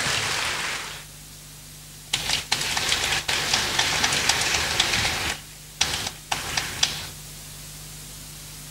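Scattered clapping from a small audience, dense for about three seconds, then a few last claps, then a faint steady room hum.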